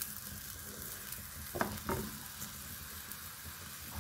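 Chicken pieces sizzling in their juices in a karahi as a spatula stirs them. There are two short knocks of the spatula against the pan about a second and a half in.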